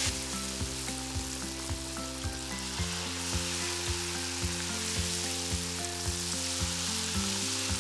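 Battered bananas deep-frying in hot oil in a wok: a steady crackling sizzle. Background music with a steady beat runs underneath.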